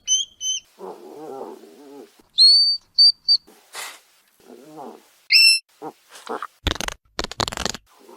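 Hedgehog calls: a few short, high-pitched squeaks, low warbling grunts, and, near the end, a run of loud noisy huffs and snorts.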